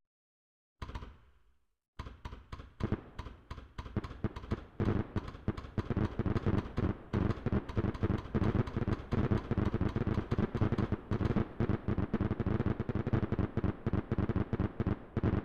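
Fireworks bursting: a single bang about a second in, then from about two seconds a dense, rapid barrage of bangs and crackles, several a second, as in a fireworks finale.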